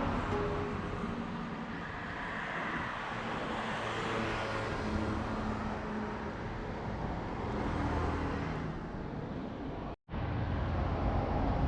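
Outdoor street ambience with a steady wash of road traffic noise. The sound cuts out abruptly for an instant about ten seconds in, then carries on.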